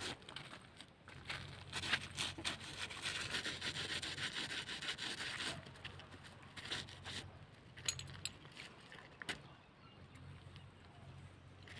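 Shoes scuffing and scraping through dry, loose soil, with crunching footsteps over the dry ground; the scratching is densest in the first half and thins out after about five seconds.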